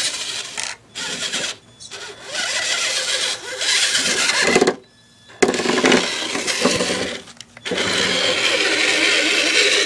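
Tamiya CR-01 RC crawler's electric motor and gearbox whirring in bursts as the throttle is worked, stopping and starting again several times.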